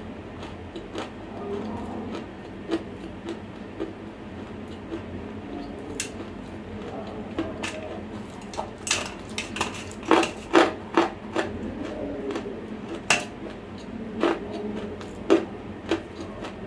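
Close-miked dry crunching and crackling of semi-roasted clay being bitten and chewed: an irregular run of sharp crunches, thickest and loudest in the middle of the stretch, with a few more near the end.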